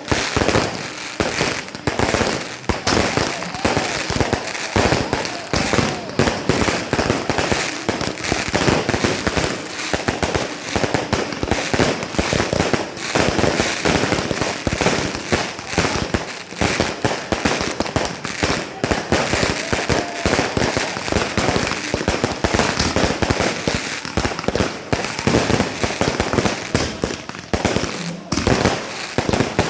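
Fireworks and firecrackers going off in a dense, unbroken string of rapid cracks and bangs, many a second, with voices under them.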